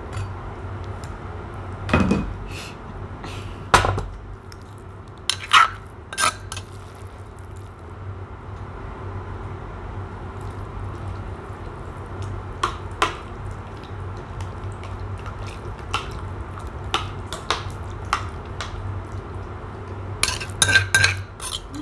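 Metal spoon knocking and scraping against a clay mortar as thick Thai curry paste is scooped out, in scattered clinks with a quick run of them near the end.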